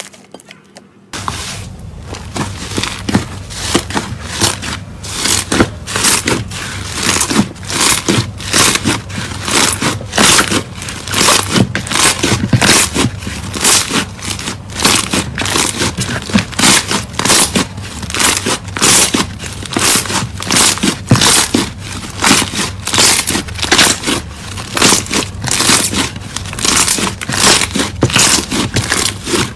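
Slime being squeezed and pressed by hand, giving a loud, continuous run of crackling pops, several a second, from about a second in.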